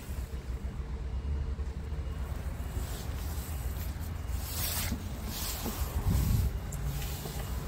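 Wind buffeting the microphone: a steady low rumble, with gusts of hiss a little before and after the five-second mark and a louder low swell about six seconds in.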